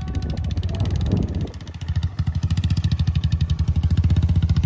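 Royal Enfield Bullet 350 motorcycle's single-cylinder engine running under load with a steady, rapid beat as it drags a wooden plank leveller across ploughed soil. It dips briefly about one and a half seconds in, then runs louder and evenly.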